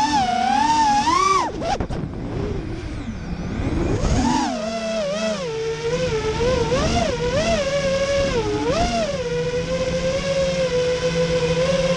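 Brushless electric motors of an FPV racing quadcopter whining, the pitch swooping up and down every half second or so with the throttle, then holding a steadier tone near the end.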